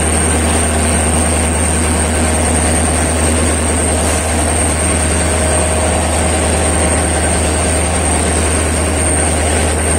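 WDP4D diesel locomotive's EMD two-stroke engine running with a steady, deep rumble and a faint hum.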